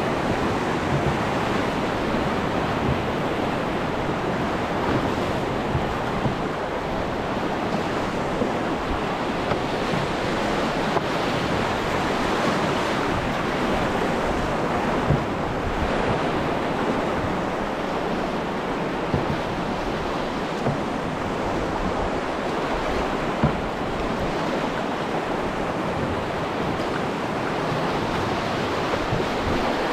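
Fast high-water river rushing steadily around a canoe, with wind buffeting the microphone. A few brief knocks stand out, one about halfway and one later on.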